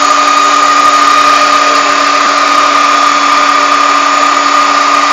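Klaz electric stand mixer running with a steady whine, its beater whipping eggs and sugar into a thick, pale batter.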